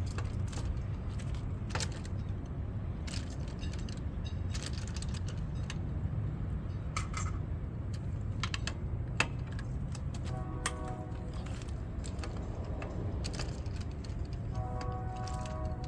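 Metal hand tools and parts clinking and clicking irregularly during brake work on a 2009 Infiniti QX56, over a steady low hum. Two short pitched tones sound, about ten and fifteen seconds in.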